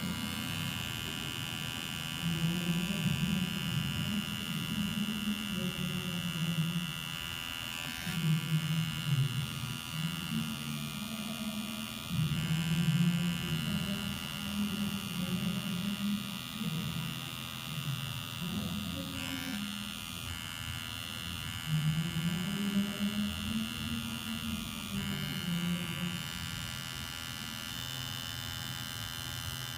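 Coil tattoo machine buzzing steadily while the needle lines the stencil outline into skin. Its low buzz wavers in pitch and loudness in swells every few seconds.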